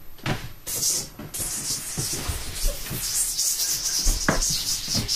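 A long, rough, flickering hiss that starts just under a second in, with a few dull thumps underneath.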